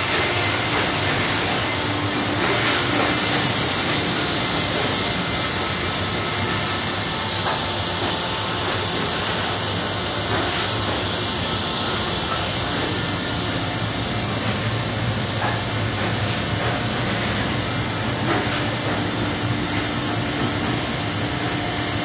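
Fabric printing machinery running steadily: an even mechanical whir with a strong hiss on top, a low hum and a few faint clicks.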